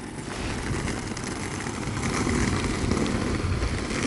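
An SUV drives up and slows to a stop alongside, its engine and tyre noise growing louder over the first three seconds and easing off near the end.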